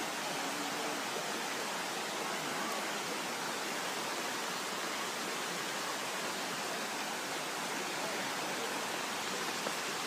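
Shallow, rocky forest stream running steadily: an even hiss of rushing water with no breaks.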